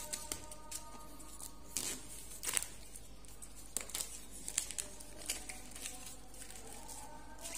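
Fingers scratching and tearing at the seal of a cardboard product box, with scattered short clicks and crinkles of plastic packaging. Faint steady tones sit underneath.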